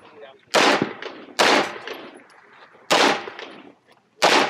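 CZ SP-01 pistol firing four shots, a second or so apart.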